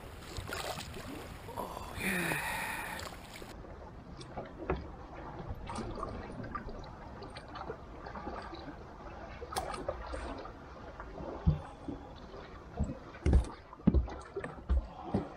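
A few seconds of wind and water noise, then scattered clicks and knocks of gear being handled in a small fishing boat, with several louder thumps against the boat near the end.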